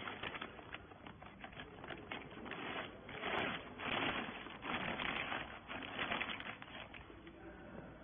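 Thin clear plastic bag crinkling and rustling as it is worked over a compressed bale of cloth rags, a dense crackle loudest in the middle.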